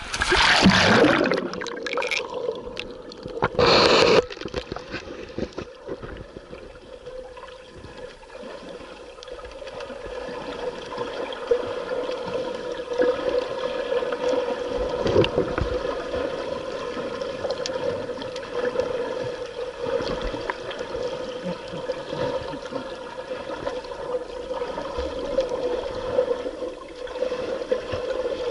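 Water splashing loudly in the first few seconds as a camera goes under the surface, then the muffled sound of the submerged camera: a steady hum with faint gurgling.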